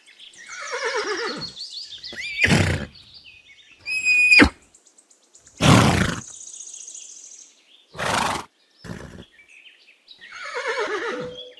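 Horse whinnying twice, each call falling in pitch, once at the start and again near the end, with short, loud, breathy bursts in between.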